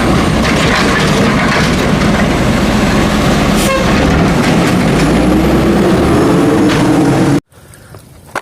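Heavy truck running loudly, with a rising whine about five seconds in. The sound cuts off abruptly near the end, as an inserted sound effect does.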